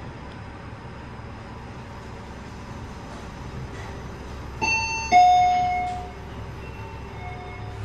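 Passenger lift's arrival chime: a two-note falling ding-dong about five seconds in, the lower second note ringing out and fading over about a second, over a steady low hum.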